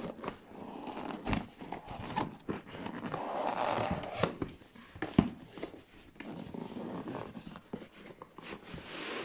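Plastic packaging rustling and crinkling as it is handled, with scattered clicks and taps; the rustling is densest about three to four seconds in.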